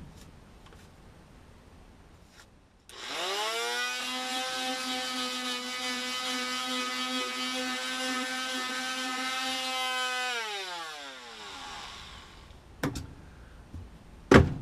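Performax oscillating multi-tool with a resurfaced hook-and-loop sanding pad, starting about three seconds in, quickly spinning up to a steady high buzz while sanding, then winding down and stopping about ten seconds in. Two sharp clicks follow near the end.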